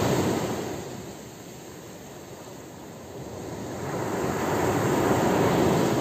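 Ocean surf on a beach: one wave's wash dies away in the first second, then the next wave swells up over the last few seconds and breaks.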